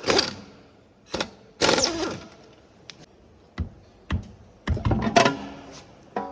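Power tool, most likely an impact wrench, running in several short bursts of a second or less with pauses between, taking off a car's wheel bolts.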